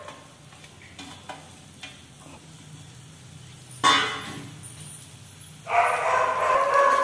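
Grated coconut sizzling faintly in hot coconut oil in an aluminium pan. About four seconds in comes a sudden loud sound that fades over a second, and a loud, steady pitched sound fills the last second and a half.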